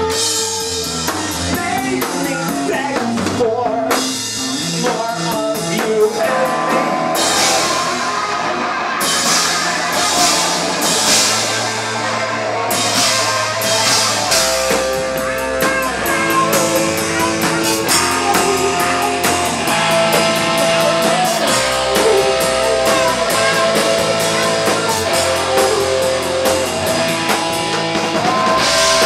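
Live rock band playing loud: distorted electric guitar and a drum kit with crashing cymbals, with vocals sung into a microphone.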